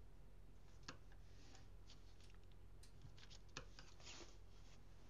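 Faint handling of origami paper as it is folded and creased with a pointed folding tool: a few soft ticks and a short swish of the tool sliding along the crease, over a low steady hum.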